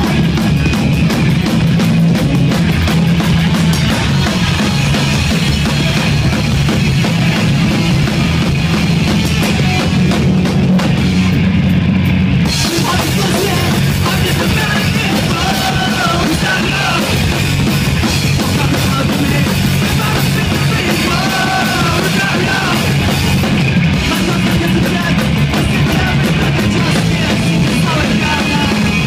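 Punk rock band playing live and loud: pounding drum kit, distorted electric guitars and bass. A shouted lead vocal comes in about halfway through.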